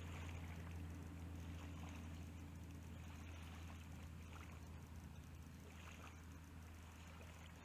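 Faint, steady low rumble of wind on the microphone, with a few light, irregular splashes on the water surface, typical of a surface lure being worked back across shallow water.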